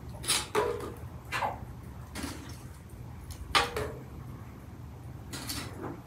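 Metal clanks and scrapes of a long-handled metal utensil worked against a metal pot on a small stove: about six separate knocks, the loudest a sharp clank a little past halfway, some leaving a short ring.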